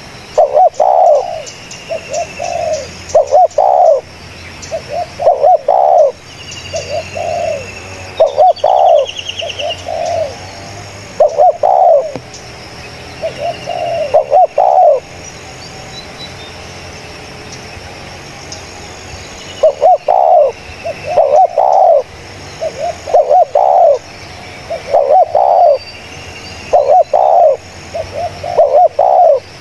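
Spotted dove cooing in repeated phrases of several notes, one phrase every couple of seconds, falling silent for a few seconds in the middle before starting again. Thin high chirps of small birds sound behind it.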